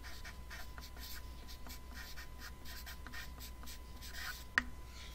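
Felt-tip marker writing on paper in many short, quick strokes as block letters are printed, with one sharp tap about four and a half seconds in.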